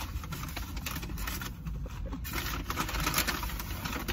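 Paper fast-food bag and wrappers rustling and crinkling as food is taken out, busiest in the middle, over a low steady rumble.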